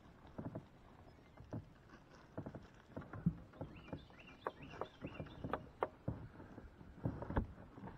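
Irregular knocks, clicks and rattles of gear being handled in a bass boat's storage compartment on deck.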